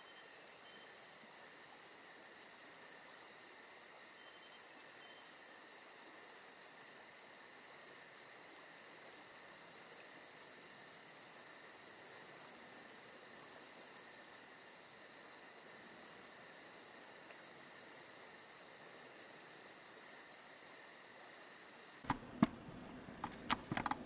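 A faint, steady high-pitched whine with a fast, even pulsing in its highest part. About two seconds before the end it cuts off and gives way to a few sharp knocks and rubs of a hand handling the camera.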